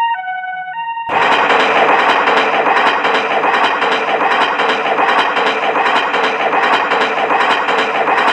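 A short stepped tune of held electronic tones, then, about a second in, an abrupt switch to a loud, dense rattling train clatter like wheels running over rail joints.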